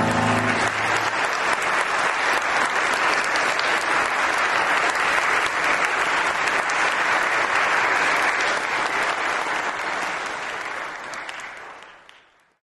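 Audience applauding: dense, steady clapping that takes over as the last piano chord dies away, then fades out near the end.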